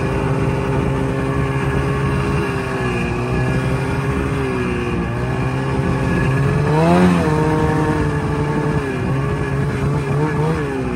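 Snowmobile engine running under way, heard from the rider's seat, its pitch mostly steady; about seven seconds in it revs up briefly and drops back, and it wavers up and down near the end.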